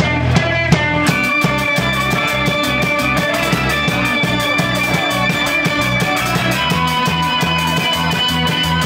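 Rock band playing live: electric guitars, bass guitar and drum kit. About a second in the drums pick up into fast, even cymbal strokes over held bass notes.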